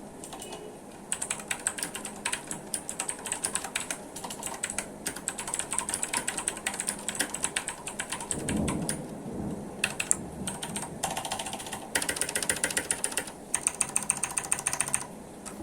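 Typing on a Redragon Kala K557W mechanical keyboard with clicky Outemu Blue switches: fast runs of sharp keystroke clicks broken by short pauses. A brief low rumble sounds about eight and a half seconds in.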